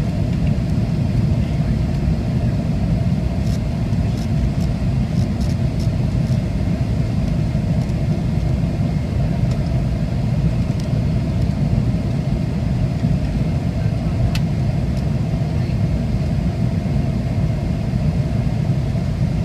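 Steady low rumble inside the cabin of a McDonnell Douglas MD-88 airliner descending on approach: rushing airflow and its rear-mounted Pratt & Whitney JT8D turbofans. A faint steady high whine sits above it, with a few light clicks.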